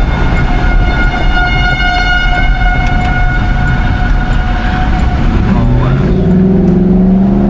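Vehicle road rumble under a steady, high-pitched tone that holds for about five seconds and then fades. About five and a half seconds in, the car's engine rises in pitch as it accelerates out of a turn.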